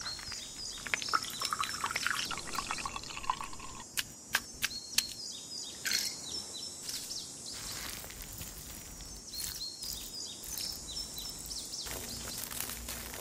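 Quiet food-preparation sounds: liquid squishing and dripping as a mesh bag of ice-jelly seeds is squeezed in a glass bowl of water, then scattered taps and clicks as frozen longan is tipped from a small glass into a hollowed watermelon. Short bird chirps recur in the background.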